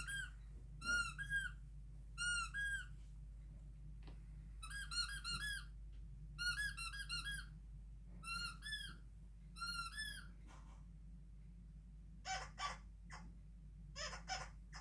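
High-pitched squeaks in quick groups of two to four, each group a second or more apart, played as a sound clip to a dog. From about twelve seconds in, shorter, rougher sounds take over.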